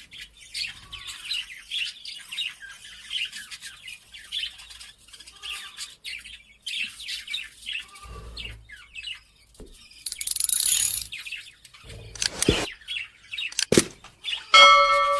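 Small birds chirping steadily in quick, high chirps, with a few sharp clicks near the end and a steady pitched tone coming in just before the end.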